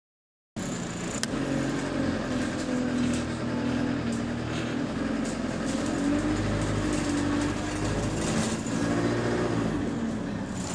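Single-deck bus engine heard from inside the saloon as the bus drives along, its pitch rising and falling with the throttle, over scattered light clicks and rattles; the engine is running well.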